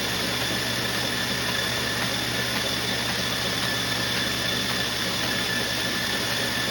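Treadmill running steadily at speed, its motor and belt giving a constant whir with a faint high whine over it.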